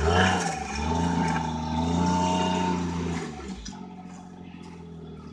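Snowmobile engine revving up and down under load while it is driven onto a trailer, then dropping away about three and a half seconds in, leaving a low steady hum.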